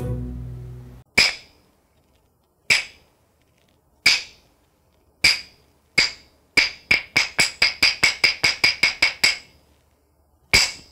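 Hyoshigi wooden clappers struck together: single claps coming closer and closer, then a quick run of about fifteen claps, then one last clap near the end. This is the traditional call that opens a kamishibai picture-story show.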